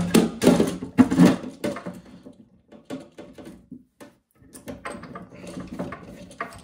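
Plastic toilet fill valve and its nut and washer being handled and fed through the cistern's side inlet hole: a few loud knocks and rubs in the first second or so, then quieter scattered clicks and scrapes.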